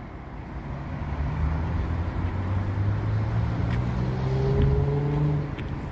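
SUV engine running as the car pulls away slowly towing a boat trailer: a low hum that builds about a second in and eases off near the end.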